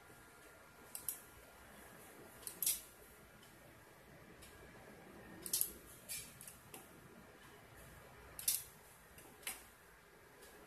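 Sharp clicks, about six of them, some in quick pairs, over a faint steady hiss, as an Icom IC-718 transceiver is switched from band to band under computer control.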